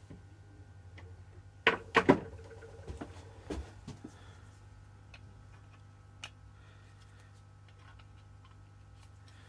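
Pad saw blade and its wooden handle being handled: a quick cluster of sharp clicks and knocks about two seconds in, then a few lighter taps, over a steady low hum.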